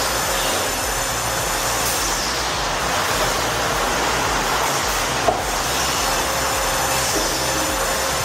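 Steady running of heavy machinery: an even rumble and hiss with a single short click about five seconds in.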